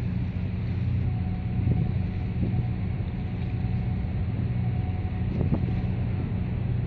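Steady low engine drone carrying across harbour water, with a faint thin whine above it from about a second in until near the end.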